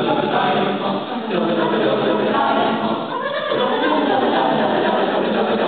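High school chamber choir singing, many voices together without a break.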